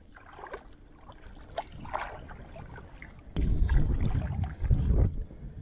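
Dip net swishing and splashing lightly in shallow water. About three and a half seconds in comes a sharp click, then heavy, low wind buffeting on the microphone.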